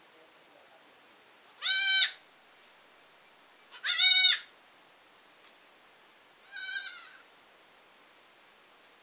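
A young goat kid bleating three times, in short, high-pitched calls about two seconds apart; the third call is quieter than the first two.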